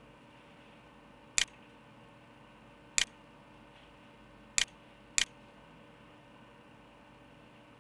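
Four sharp computer mouse-button clicks, the last two about half a second apart, over a faint steady hum.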